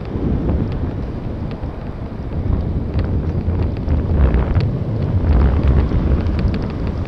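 Wind rushing over the microphone of a camera on a moving bicycle, a steady low rumble, with scattered faint clicks.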